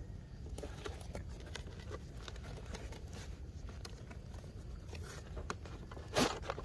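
A cardboard toy box being opened and handled: scattered small clicks, taps and crackles, with a brief louder rustle near the end.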